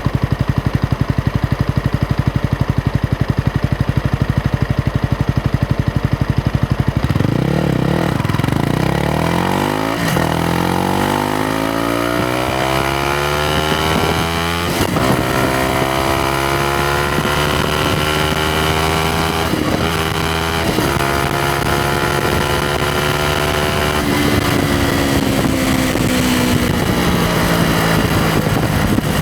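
Yamaha MT-125's single-cylinder 125 cc four-stroke engine ticking over steadily, then pulling away about a quarter of the way in. It accelerates up through the gears, the exhaust note climbing in pitch and dropping back at each shift, then eases off and falls in pitch near the end.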